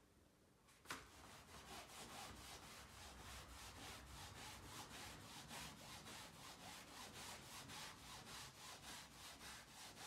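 Very faint, rhythmic scrubbing of a sponge over car seat belt webbing, about four strokes a second, starting just after a light click about a second in.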